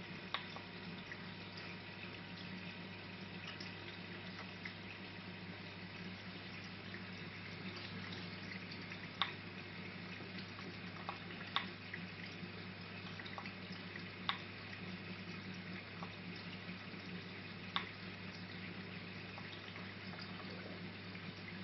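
Water in a marine reef aquarium moving and splashing steadily under its circulation pumps, over a low steady electrical hum, with a few sharp clicks scattered through.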